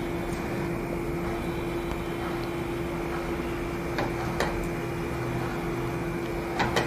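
A steady mechanical hum with one even tone, like a kitchen fan, while an omelette cooks on a tava over a low flame. A few light utensil clicks about four seconds in and near the end.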